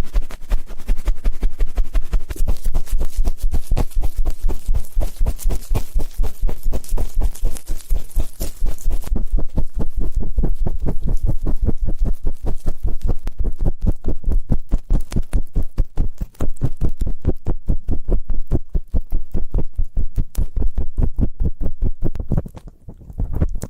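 Ear-cleaning ASMR: something rubbing and scraping rapidly and rhythmically against a microphone's ear, about six close-miked strokes a second with a deep thumping low end. The strokes turn duller about a third of the way in and thin out just before the end.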